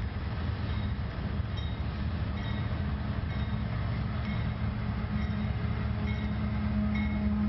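Diesel freight locomotives running with a steady low engine drone, over a constant hiss of heavy rain.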